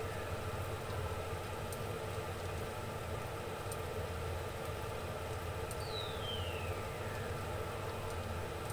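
Steady low hum and hiss from the stovetop as covered pots steam on it, with a faint whistle falling in pitch about six seconds in.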